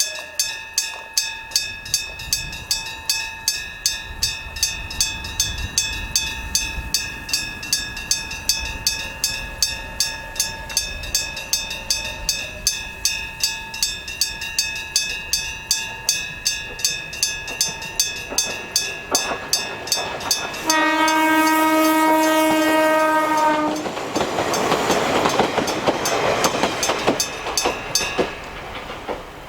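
Level-crossing electric bell striking steadily about twice a second as a train approaches. About 21 seconds in, the diesel railcar sounds one long horn blast of about three seconds, then passes over the crossing with a rushing rumble, and the bell stops shortly before the end.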